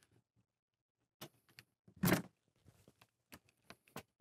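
Scattered light clicks and knocks, with one louder thump about two seconds in.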